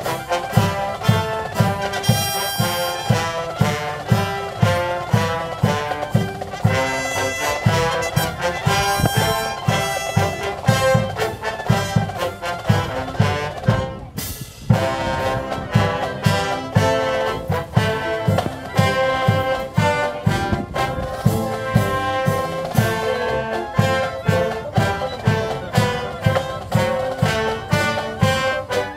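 Military brass band playing a march, brass over a steady bass-drum beat about twice a second, with a brief break about halfway through before the music picks up again.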